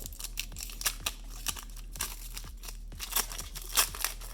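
Foil Pokémon booster pack wrapper being crinkled and torn open by hand, a run of irregular sharp crackles and rustles.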